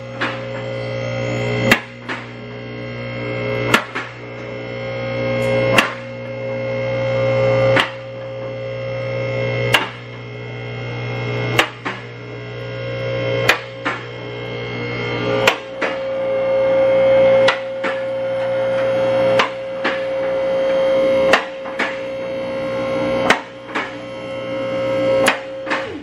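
Electric hydraulic pump motor of a car lift running steadily while it raises the car, with a sharp click about every two seconds as the lift's safety locks catch. The motor cuts off suddenly near the end.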